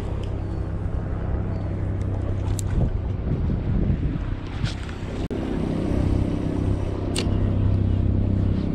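A steady low hum with wind noise on the microphone, and three sharp clicks from a spinning reel as a lure is cast and reeled in.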